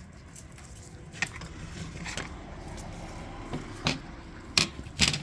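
Scattered sharp clicks and taps of small metal carburetor parts and hand tools being handled during reassembly, about five in a few seconds, over a steady low hum.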